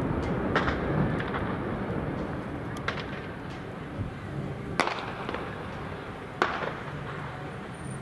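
Distant blasts of Easter dynamite charges on a hillside: a low echoing rumble that slowly fades, broken by several sharp bangs, the two loudest about five and six and a half seconds in.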